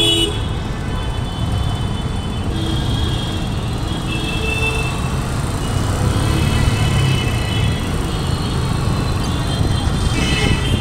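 Motorcycle engine running at low speed through city traffic, a steady low rumble with road and wind noise. Thin high tones come and go over it.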